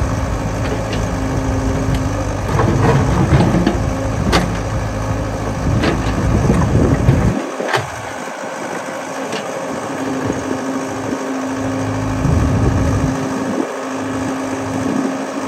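Yanmar ViO70 mini excavator's diesel engine running steadily under load as it digs wet mud, its note heavier in the first half and easing about seven and a half seconds in. A few sharp knocks sound over the engine.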